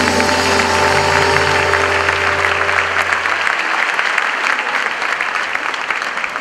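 Audience applauding as the held final chord of the mambo music fades out about three and a half seconds in, leaving the clapping on its own.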